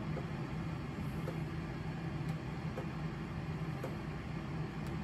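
Steady low mechanical hum of a room machine. A few faint clicks are heard as small plastic action-figure hands and accessories are handled and fitted.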